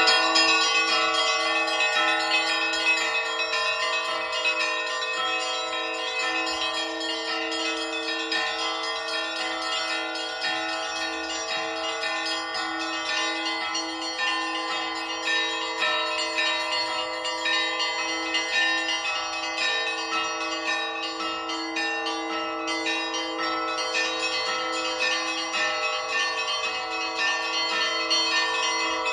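Russian Orthodox church bells rung for Easter, heard from up in the bell tower. Several bells of different pitches are struck together in a continuous rhythmic peal, the small high bells striking rapidly over the steady ring of a larger, lower bell that is struck at a regular beat.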